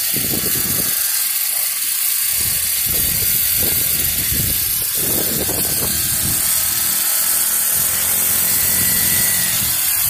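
Small gas engine of a child's mini dirt bike buzzing steadily as it rides along, with an uneven low rumble underneath.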